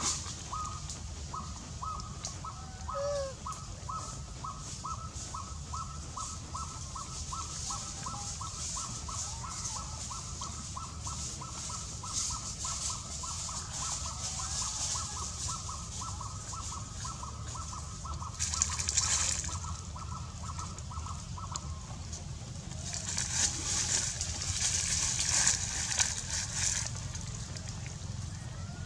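Forest background sound: a high call repeats about three times a second and stops about three-quarters of the way through. Under it runs a steady high hiss that swells briefly twice toward the end.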